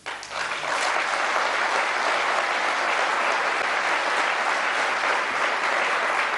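A large audience applauding: dense, steady clapping that starts abruptly.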